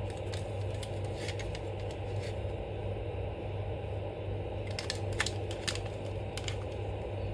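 Plastic Hasbro Titan Hero Series Doctor Doom action figure being handled and posed: scattered light clicks and knocks of the plastic body and limbs, a few close together about five seconds in, over a steady low hum.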